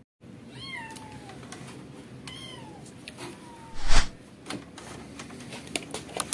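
A cat meows three times, short calls that rise and fall in pitch, over light clicking and handling noise; a loud thump comes about four seconds in.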